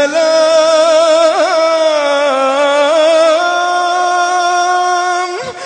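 A man's voice in melodic Quran recitation, holding one long drawn-out note with small wavering ornaments on the closing vowel of the verse "اليمين". It falls and breaks off for a breath near the end.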